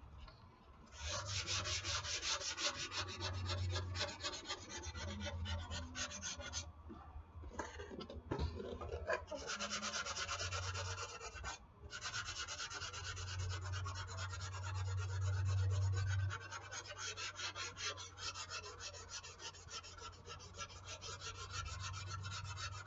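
Dry 220-grit sandpaper rubbed by hand over hardened wall spackle on a foam RC airplane part, in quick back-and-forth scratchy strokes. It starts about a second in and stops briefly twice along the way.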